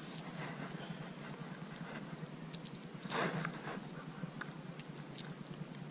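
Faint handling sounds of unhooking a small bass with fishing pliers: a few light clicks and ticks, with a brief louder rustle a little after three seconds in.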